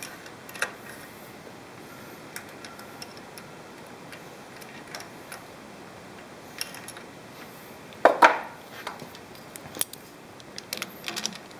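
Small metal clicks and clinks as fingers fish a loose, broken-off roller out of the back of a Bridgeport 8F power feed gearbox, with one louder clatter about eight seconds in and a quick run of clicks near the end, over a steady static hiss.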